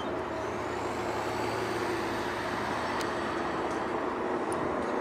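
Steady mechanical engine drone with a constant low hum, and a faint high whine that rises during the first second and then holds steady.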